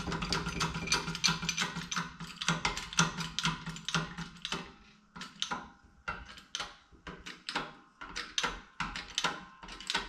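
Hydraulic jack on a press being pumped to press a new seal into a combine water pump, with a string of metallic clicks. The clicks come quickly at first, then slow to single clicks about every half second to a second.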